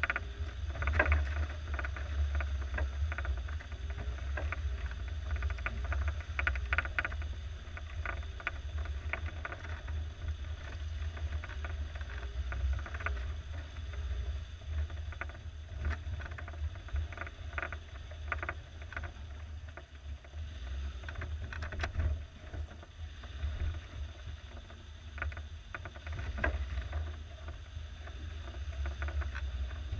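Suzuki SJ413 4x4's four-cylinder engine running low and steady as the vehicle crawls over a muddy, rocky trail. Scattered knocks and clatters come from the body, suspension and tyres working over the rough ground.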